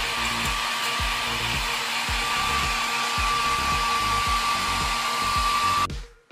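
Blow dryer running steadily with a high motor whine, blowing on a wet puppy's fur, over background music with a steady beat; the dryer cuts off suddenly near the end.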